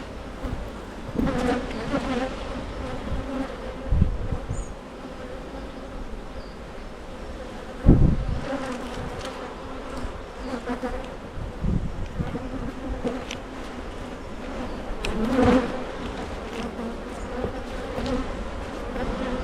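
Honeybees buzzing around an open hive, a steady hum, with a few low thumps, the loudest about eight seconds in.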